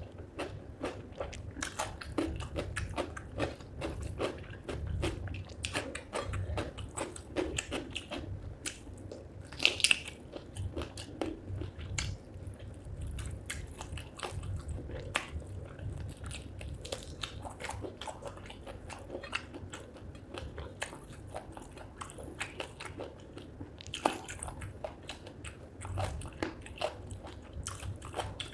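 Close-miked eating of chicken feet curry with rice: steady wet chewing with frequent crunches and cracks as the feet are bitten and gnawed, including a sharp crack about ten seconds in.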